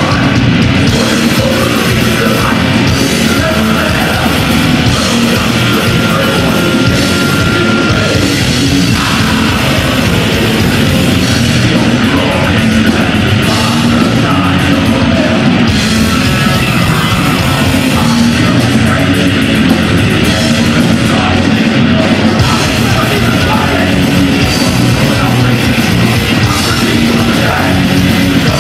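Heavy metal band playing live at high volume: distorted electric guitars and drum kit, without a break.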